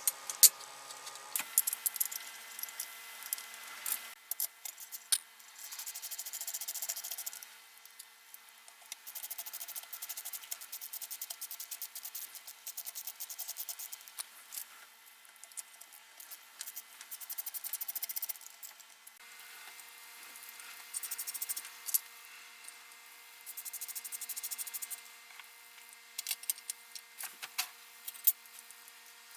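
Rapid hand rubbing strokes on a part, in bursts of one to six seconds, with scattered clicks and taps between the bursts.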